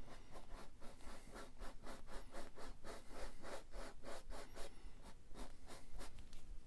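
Small paintbrush scratching and dabbing oil paint onto a stretched canvas in quick, short, repeated strokes, about four a second.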